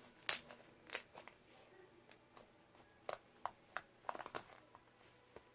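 Slime being kneaded and squeezed by hand, giving irregular sharp pops and clicks, the loudest about a third of a second in and a cluster around three to four and a half seconds in.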